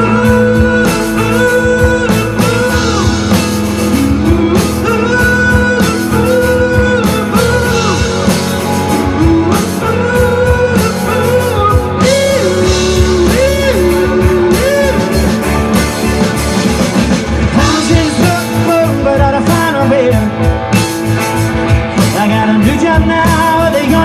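Live rock band playing an instrumental break: a lead line of bending, sustained notes over bass and steady drums.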